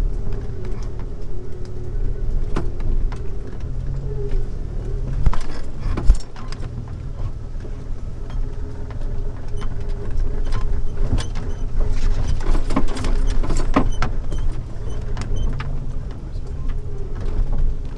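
Jeep Wrangler TJ crawling slowly over a tight off-road trail: a steady low engine and drivetrain drone with scattered knocks and rattles, a sharp knock about six seconds in.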